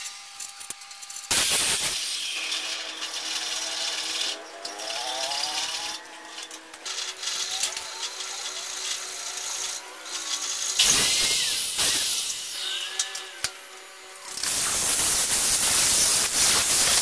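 Angle grinder grinding the steel head of a hatchet held in a vise, in several bursts. A short loud burst comes early, another a little past the middle, and the longest and loudest begins about three-quarters of the way through and keeps going.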